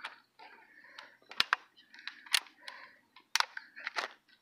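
Plastic trail camera case being handled and snapped shut: a scatter of sharp clicks and snaps with soft rubbing and rustling between them, the sharpest click about a third of the way in.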